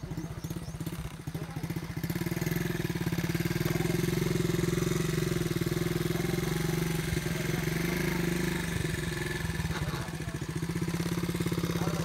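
An engine running steadily with a rapid, even beat, a little louder from about two seconds in.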